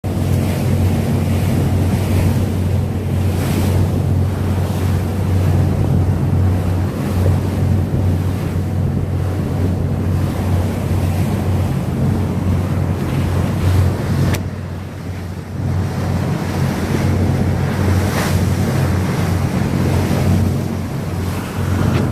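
Wind buffeting the microphone on a yacht under way, over the steady low drone of the boat's engine and rushing water. The wind eases briefly about two-thirds of the way through.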